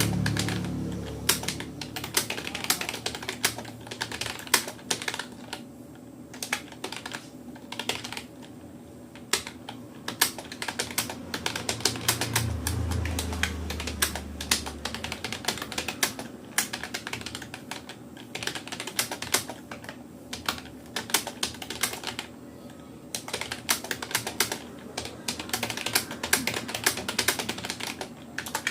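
Fast touch typing on a Rapoo computer keyboard: a steady stream of uneven keystroke clicks, broken by a few brief pauses.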